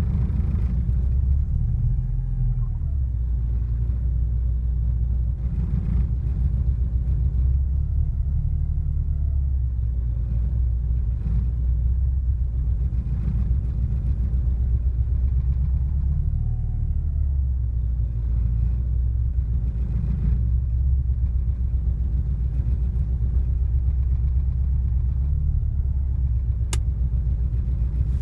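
1986 Porsche 944's 2.5-litre inline-four idling after a hard start, its low rumble wavering up and down every few seconds as the idle settles.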